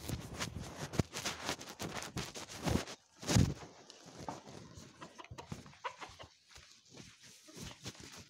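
Footsteps on dirt and rustling, with knocks of a hand-held phone being handled, making an irregular run of soft thuds and scrapes; one louder thump comes about three seconds in.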